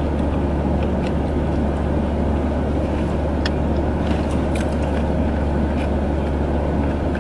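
Steady low hum and rush of a car running with its air conditioning blowing, heard inside the cabin, with a few faint clicks.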